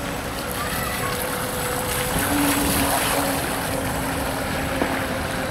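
Brushless outrunner electric motor of a model hydrofoil boat running with a steady hum, over the hiss of water spray that is loudest midway. Wind buffets the microphone.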